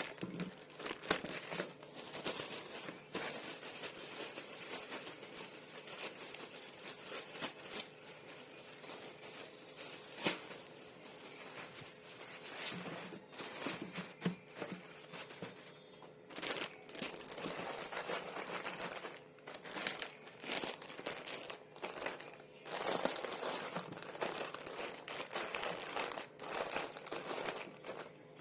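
Plastic packaging crinkling and rustling as it is handled, with many sharp crackles and the odd tearing sound.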